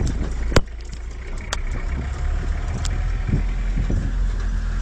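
Steady low rumble of a car driving, heard from inside the cabin. A sharp click about half a second in is followed by a brief drop in level, and two fainter clicks come later.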